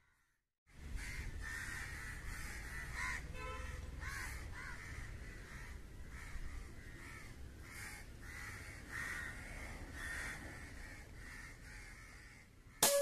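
Crows cawing repeatedly over a low steady rumble. Near the end comes a single sharp, loud shot from a PX100 PCP air rifle.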